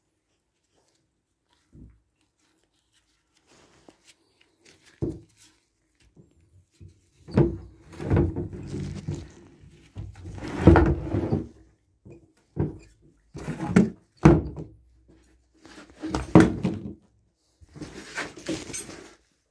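Irregular thunks and scraping from handling the opened plastic housing of a sump pump, in bursts starting about seven seconds in, after two faint knocks.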